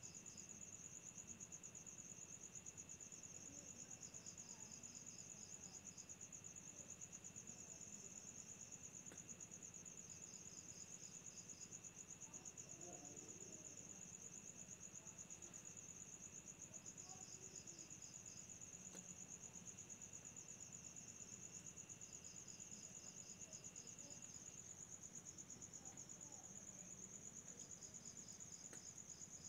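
Faint chorus of crickets and other night insects. One insect trills continuously at a fast, even pulse, while another gives short high chirp bursts every four to six seconds. A thinner steady buzz underneath cuts off near the end.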